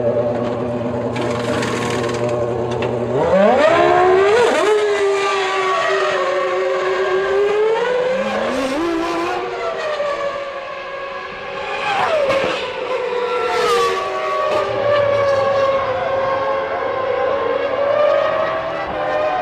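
1999 Formula One cars' high-revving 3.0-litre V10 engines racing. A steady high engine note gives way about three seconds in to sharp rises in pitch as engines rev up through the gears. Further rising and falling engine notes follow as cars accelerate and pass.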